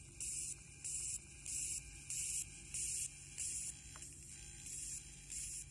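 Electromagnetic radio interference from a PCA9685 PWM driver board, picked up by a probe and played as sound: regular bursts of high hiss about one and a half times a second, over a steady low hum.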